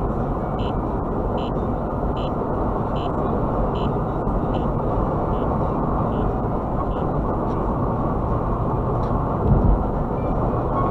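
Steady road and tyre noise inside a car cruising on a freeway, picked up by a dashcam's microphone. A faint short beep repeats a little more than once a second, fading out over the first two thirds, and a low bump sounds near the end.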